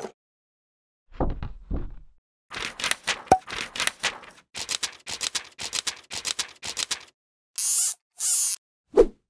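Aluminium foil being handled on a wooden table: two dull knocks, then a long run of crinkling and creasing strokes, about three a second, as a sheet of foil is folded and pressed into a small plug. Two short rustling swishes follow, and a single sharp knock comes near the end.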